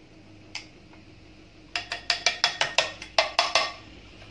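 A plastic yogurt pot rapped against a glass mixing bowl about a dozen times in quick succession, each knock ringing briefly, to shake the last of the yogurt out.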